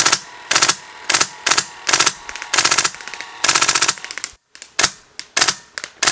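Airsoft M249 running on a Polar Star HPA engine, firing short bursts of full-auto: about seven bursts in the first four seconds, the last two longer, then after a brief break several shorter, quicker bursts.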